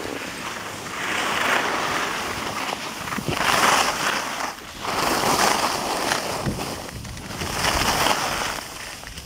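Skis scraping and hissing over packed snow during a run, rising and falling in several swells, with wind rushing on the microphone.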